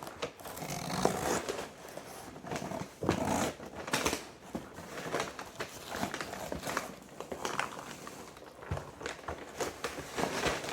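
Cardboard shipping box and wrapping being handled: irregular crinkling, rustling and scraping with small knocks, as a potted plant is tugged at inside a tight box.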